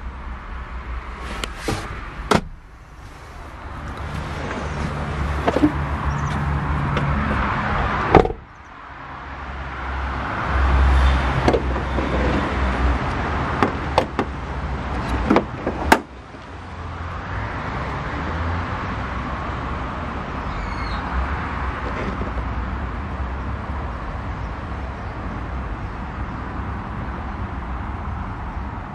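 Citroën Jumper van's 3.0 HDi diesel engine running at idle with a steady rumble, broken by several sharp knocks.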